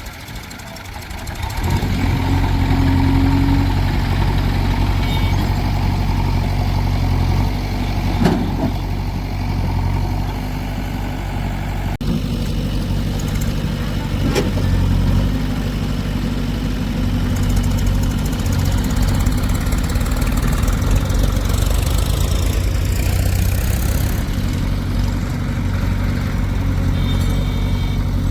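A heavy diesel engine running steadily, growing louder about a second and a half in.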